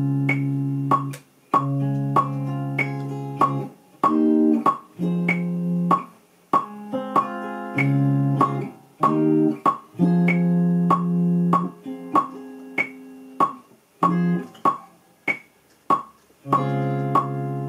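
Electric guitar played dry, with no effects, in held single notes and short phrases, over a metronome clicking steadily at 96 BPM with a higher accented click on every fourth beat.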